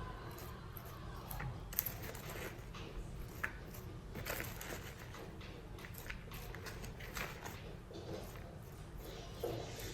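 Irregular crunching and crackling with scattered short clicks, from coleslaw ingredients such as raw shredded cabbage being worked by hand in the kitchen.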